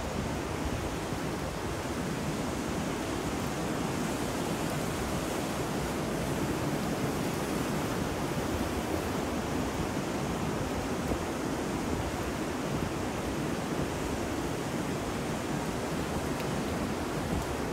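Steady rush of ocean surf mixed with wind, an even wash of noise with no single wave break standing out.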